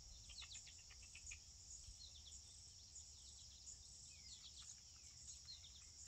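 Faint, steady, high-pitched insect chorus of crickets, with scattered short, high chirps over it.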